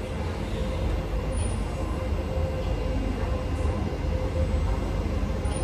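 Cabin noise of a Kawasaki–CRRC Qingdao Sifang C151B metro train running between stations: a steady low rumble from the wheels and car body, with a faint steady tone above it.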